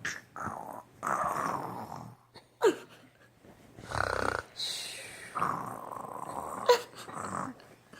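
Snoring: a run of drawn-out snores, each about a second long, with pauses between. Two short squeaks that fall in pitch come in between the snores and are the loudest sounds.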